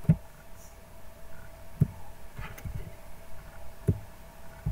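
Three soft low thumps about two seconds apart, over a faint steady electrical hum.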